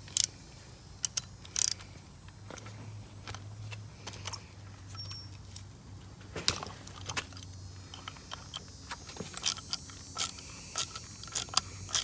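Irregular metallic clicks and clinks of a wrench and hand tools working the caliper pins loose on a brake caliper, over a low steady hum.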